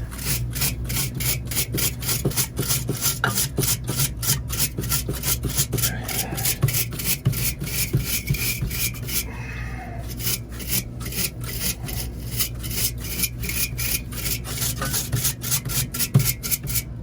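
Rapid back-and-forth rasping strokes, about four or five a second, of a brush scrubbing a dirty refrigerator evaporator coil, with a short break about nine seconds in. A steady low hum runs underneath.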